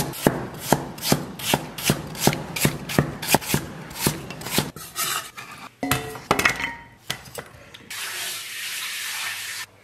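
Chinese cleaver slicing ginger on a wooden chopping block, about four chops a second for the first half. A few scattered knocks follow, then near the end a steady hiss of water running from a kitchen tap.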